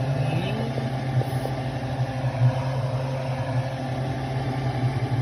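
A steady low mechanical hum, like a motor or fan running, holding even throughout.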